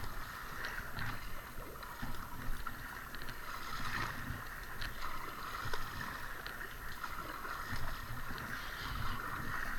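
Double-bladed paddle strokes splashing into the river, with water sloshing around the hull of an inflatable kayak.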